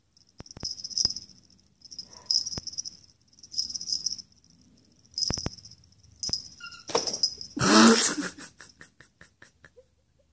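Clear plastic bag rustling and crinkling in short bursts as a rabbit shakes its head with the bag caught on it, with a louder crinkle about eight seconds in as the bag comes off.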